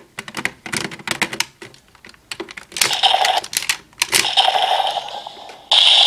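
Rapid plastic clicks and clacks from a DX Desire Driver toy belt being worked with the Jyamato Buckle, with two short stretches of electronic sound from the toy in between. Near the end the toy's loud electronic transformation sound cuts in abruptly.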